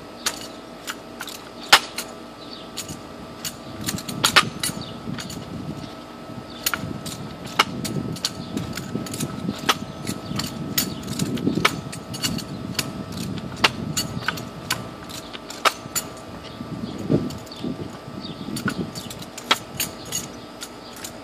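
Drill rifle being spun and caught again and again, with sharp irregular clicks and jangles from its sling fittings and the hands slapping the stock as each power spin is stopped halfway. A low rumble comes in through the middle stretch.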